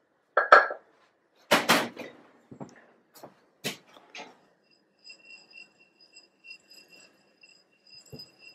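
Crushed allspice being tipped out of a stone mortar into a metal bowl, with a series of knocks and clinks as the mortar and pestle tap against the bowl, the loudest in the first two seconds and fewer after about four seconds.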